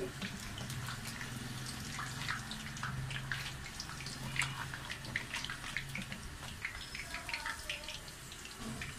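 Hot oil sizzling and crackling in a karahi as fried potato pakoras are lifted out with a wire skimmer, with a low steady hum underneath.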